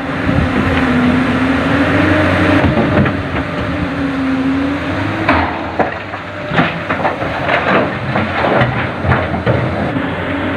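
Diesel excavator running under load, its engine note wavering, with a run of clanks and knocks of rock and bucket metal from about five seconds in as stone is loaded into a dump truck.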